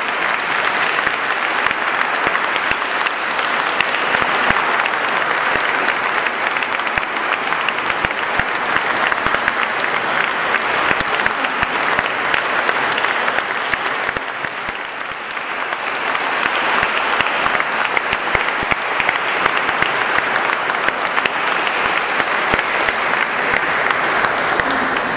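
Audience applauding, a long spell of clapping that eases briefly about halfway through, picks up again, and begins to die away at the very end.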